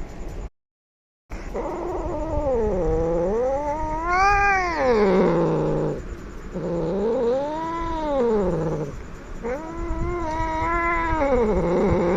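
Angry domestic cat yowling: three long, drawn-out caterwauls that rise and fall in pitch, after a brief dead gap about half a second in.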